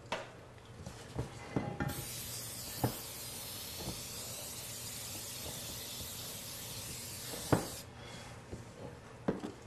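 Aerosol cooking spray hissing in one steady spray of about six seconds as it coats a 9x13 baking dish. A few light knocks of kitchenware come before it, and a sharper knock just before the spray stops.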